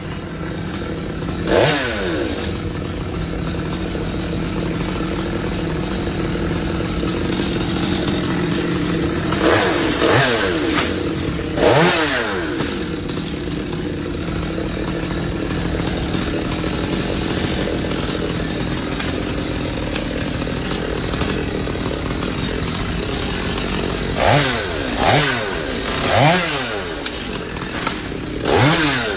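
Chainsaw idling, with about eight short throttle revs whose pitch shoots up and drops back: one near the start, three close together in the middle, and four near the end.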